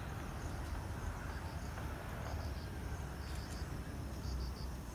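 Insects chirping in short high pulses that repeat in clusters, becoming more frequent about halfway through, over a low steady rumble.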